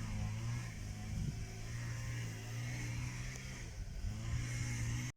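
A motor running steadily with a low, even drone that cuts off abruptly at the end.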